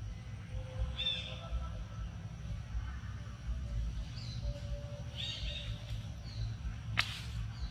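A few short, high-pitched animal calls over a low rumble, with a sharp click near the end.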